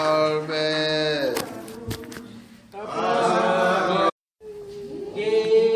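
Voices singing long held notes in a church service, with a few sharp clicks in a brief lull near two seconds in. The sound drops out completely for a moment just after four seconds, then a held sung note resumes.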